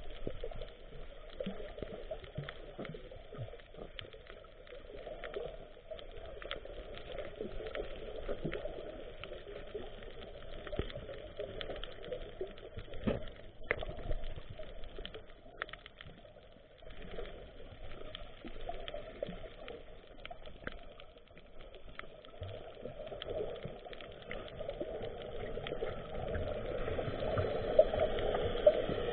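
Muffled underwater noise picked up by an action camera: water moving around the camera, with scattered faint clicks and crackles. It grows louder near the end.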